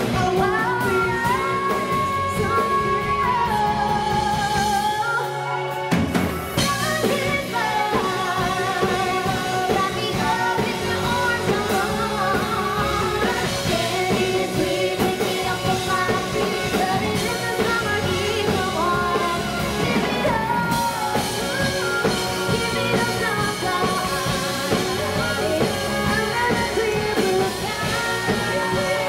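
Live pop-rock band playing, with a woman singing lead over drum kit and bass guitar. The drums and bass drop out for about a second roughly five seconds in, then the full band comes back in.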